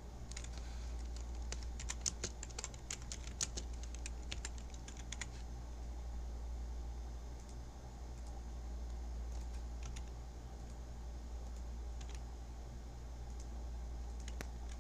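Typing on a computer keyboard: a quick run of keystrokes for about five seconds, then a few scattered clicks, over a steady low hum.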